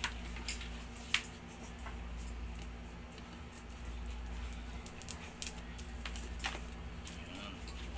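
Scattered light clicks and taps of plastic being handled: hands working a motorcycle helmet's visor while peeling its protective sticker film off. One sharp click comes about a second in, and a few more follow later, over a low steady hum.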